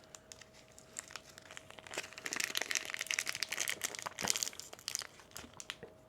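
Plastic packaging crinkling and rustling as it is handled, with many small clicks, busiest from about a second in until near the end.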